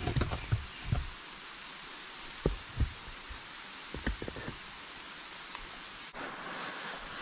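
Steady hiss of rain falling in a forest, with a few soft low thumps and rustles of dry leaves being handled on a rock in the first few seconds. The rain hiss grows louder about six seconds in.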